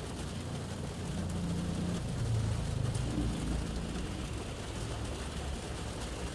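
Rain showering on a car's roof and windows, heard from inside the cabin, with a passing vehicle's low rumble swelling about a second in and fading away a few seconds later.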